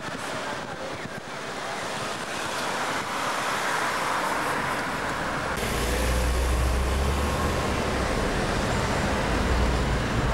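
City street traffic noise: cars going by. A deep low rumble comes in suddenly about halfway through.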